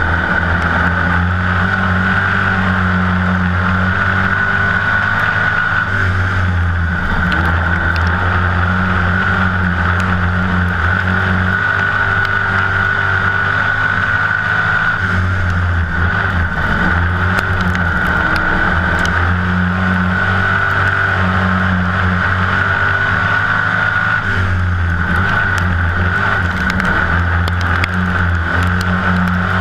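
Dirt-track stock car's V8 engine running hard at racing speed, heard from inside the cockpit, its pitch dipping briefly a few times as it comes off the throttle and back on.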